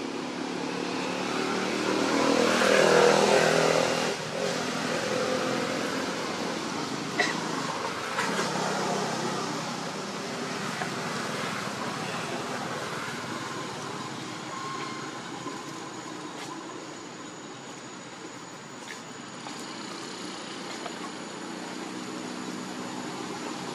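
A passing motor vehicle's engine, swelling to its loudest about three seconds in and fading back into a steady outdoor rumble.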